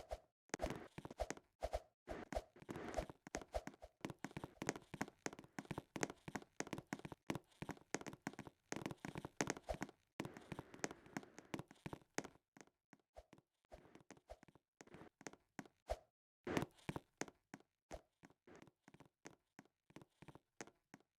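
Quiet, irregular taps and knocks in quick succession, dense for about the first twelve seconds and then sparser, with a short cluster about three-quarters of the way through.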